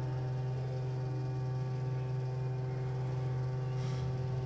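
Steady electrical mains hum, a constant low buzz with a stack of even overtones.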